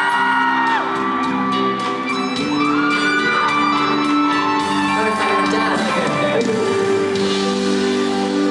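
Live band music echoing in a large hall, with a voice holding and sliding between sung notes over sustained chords. Shouts and whoops from the audience rise over it.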